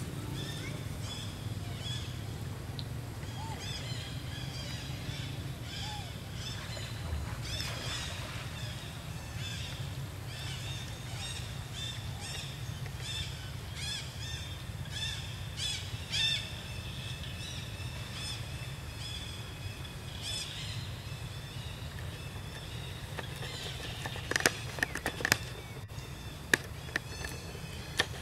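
Outdoor ambience of birds chirping: short high calls repeated many times over a steady low rumble. A few sharp clicks stand out near the end.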